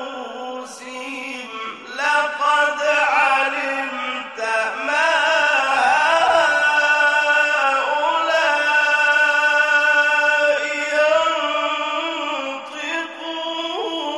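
A male Quran reciter's voice in the melodic mujawwad style, drawing out the words in long, ornamented held notes, with brief pauses for breath.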